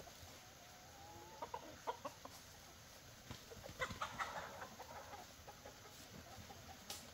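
Hens clucking faintly: a short wavering call about a second in, a few clucks just after, and a louder run of clucks around four seconds in.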